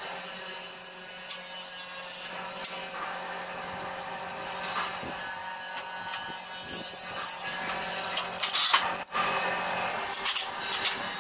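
Metal parts and hand tools clicking, rubbing and scraping as a small grain thresher is assembled by hand, over a steady hum. A louder stretch of scraping comes about three-quarters of the way through.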